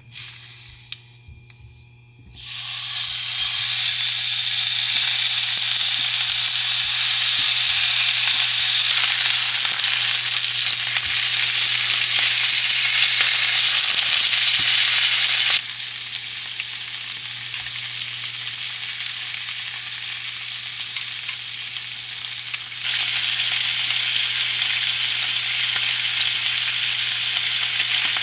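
Food frying in a hot pan, a loud, even sizzle that starts about two seconds in after a few light clicks. It drops to a quieter sizzle about halfway through and grows louder again near the end, over a steady low hum.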